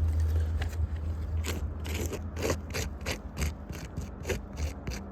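A quick run of short, gritty scraping strokes, about three a second, starting about a second and a half in, over a steady low wind rumble on the microphone.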